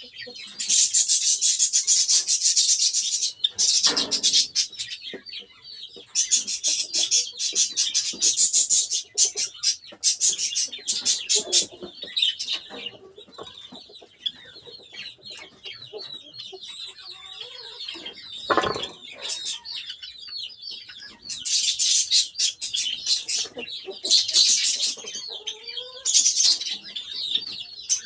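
Pet Java sparrows (Java finches) chirping continuously in high notes, broken by several loud bursts of rapid clicking lasting a second or more each, with a couple of brief low thumps.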